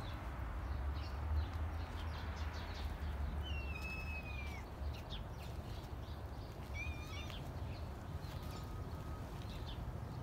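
Outdoor ambience with a steady low rumble. A few thin bird whistles and chirps come through it, one a falling whistle near the middle and a short cluster of chirps a few seconds later.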